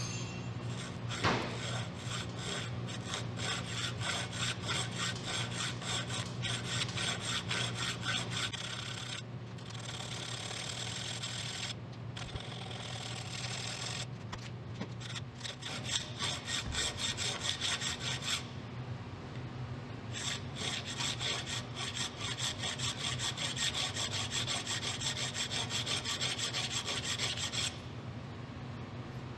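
Hand file rasping back and forth across a steel texturing tool, sharpening its sawn grooves toward chisel-like points. Runs of quick strokes are broken by short pauses, with a longer pause a little past the middle.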